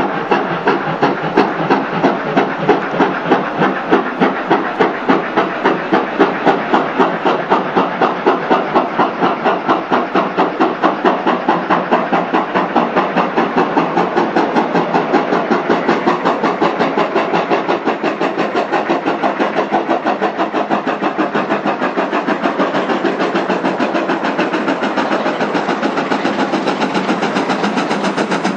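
GWR Hall class 4-6-0 steam locomotive 4953 Pitchford Hall pulling a train away from a standing start and working hard. Its two-cylinder exhaust beats are loud and even, about two a second at first and quickening steadily to around four a second as it gathers speed.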